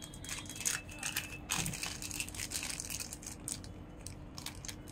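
Small clear plastic parts bag crinkling as hands open it and handle the mounts inside: a run of quick crackles and rustles, busiest about one and a half seconds in.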